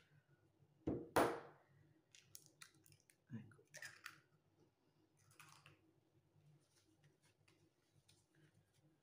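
Eggs being cracked on a bowl and broken into it: a loud crack about a second in, then smaller clicks and crackles of shell.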